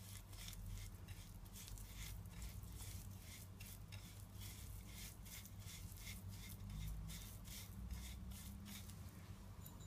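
Faint wet rubbing and squishing of fingers mixing a paste of dry seasonings and vegetable oil on a plate, in quick irregular strokes over a low steady hum.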